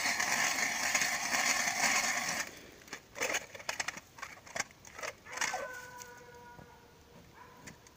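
Hand ice auger boring into the ice with a steady gritty grinding that stops abruptly about two and a half seconds in. Several sharp knocks and clatter follow, then a faint steady whine near the end.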